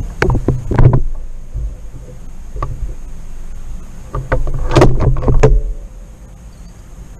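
Rustling and knocking handling noise on the microphone as the shooter moves about with the air rifle, in two short bursts about four seconds apart.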